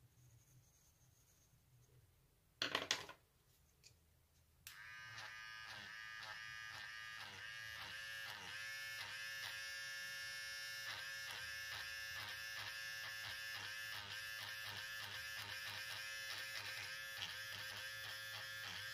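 Handheld battery electric eraser switched on about five seconds in and running with a steady whine, its pitch dipping briefly again and again as it rubs coloured pencil off the paper. A short loud noise comes a couple of seconds before it starts.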